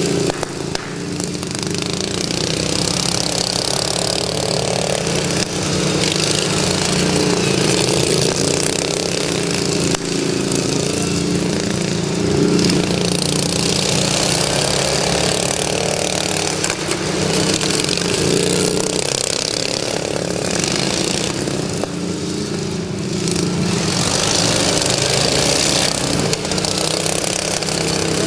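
Several racing riding lawn mowers with their small engines running hard as they lap a track. The combined engine note wavers up and down in pitch and level as the machines throttle and pass.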